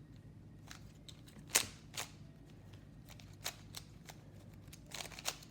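Rubik's cube being turned quickly by hand: irregular sharp clicks and snaps of the plastic layers, loudest about a second and a half in and with a quick cluster near the end.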